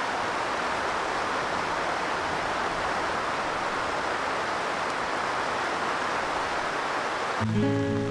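Steady hiss of heavy rain falling. Soft instrumental music comes in near the end.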